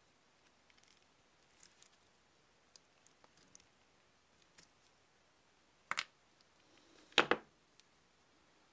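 Faint metallic clicks and taps of needle-nose pliers working a rusty metal pin in a small painted part of the bank, then a sharp double click about six seconds in and a louder double knock of metal on the tabletop about a second later.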